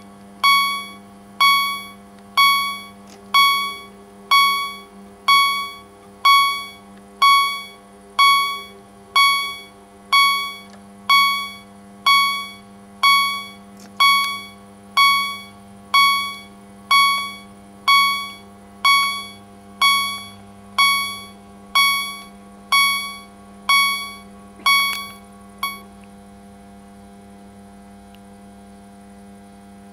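Level crossing warning bell striking about once a second, each stroke ringing and fading, as the barrier arms lower; it stops about 26 seconds in once the barriers are down. A steady electrical hum continues underneath.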